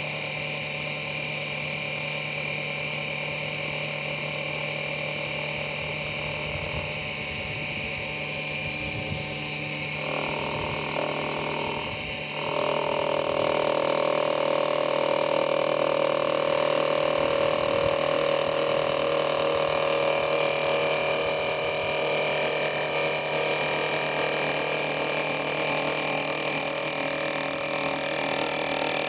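Micro lathe's small electric motor running steadily as it spins a wooden dowel. About twelve seconds in the cutting tool engages the wood and a louder cutting noise joins the motor sound.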